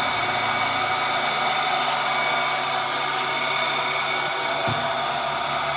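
Steady drone of workshop machinery running: a constant hiss with several steady tones through it, and a faint low knock near the end.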